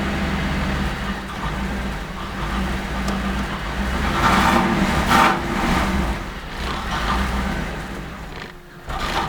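1988 Camaro IROC's 350 TPI V8 running rough and misfiring, its note swelling and sagging unevenly, then fading near the end as the engine stalls. The misfire was traced to a failing ignition control module on the distributor.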